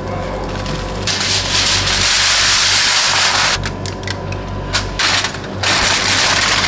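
Cling film and aluminium foil crinkling and rustling as a dish is covered and uncovered: a long loud rustle, a run of sharp crackles about three and a half seconds in, then another loud rustle near the end.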